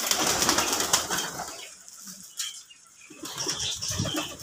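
A flock of domestic pigeons with wings flapping hard for about the first second and a half, then low pigeon cooing near the end.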